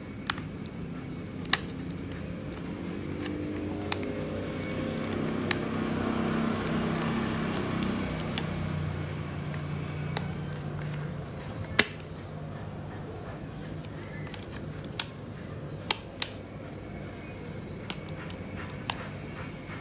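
Scattered sharp clicks and taps of plastic laptop parts, an HDD caddy and its bezel, being handled and pushed into place. Under them runs a low hum that swells in the middle and fades after about eleven seconds.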